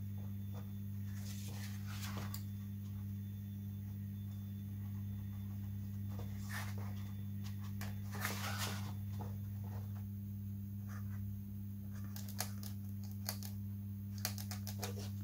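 Soft rustles and light taps of a tissue-covered balsa model aircraft wing being handled and pressed, in a few short spells, over a steady low electrical hum.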